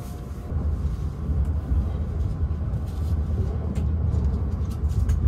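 Low, steady rumble of a Hayabusa Shinkansen bullet train running on its track, heard from inside the passenger car as it pulls away from a station. The rumble grows louder about half a second in.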